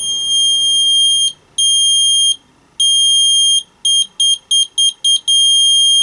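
Piezo ceramic buzzer running on 3 V from two AA batteries, giving a loud, high-pitched steady tone that switches on and off as its leads make and break contact with the battery holder. First come three long tones, then a quick run of about seven short beeps, then one long unbroken tone.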